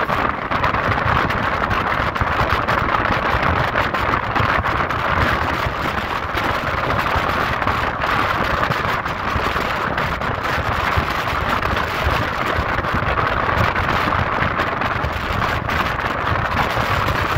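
Express train running at speed, heard from an open coach doorway: a steady rush of wheels on rails mixed with wind buffeting the microphone.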